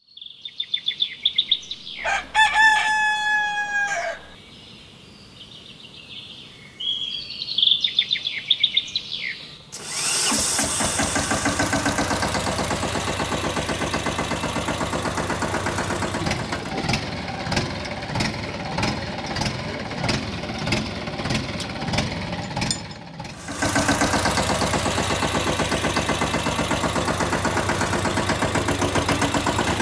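A rooster crows about two seconds in, among other bird calls. From about ten seconds an engine runs with a fast, even chugging, becoming louder and steadier about twenty-three seconds in.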